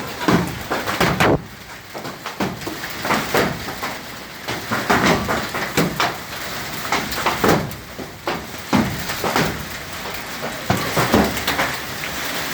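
Hailstones falling in a hailstorm, striking hard surfaces as a rush of irregular knocks and clatters over a steady hiss of falling ice and rain.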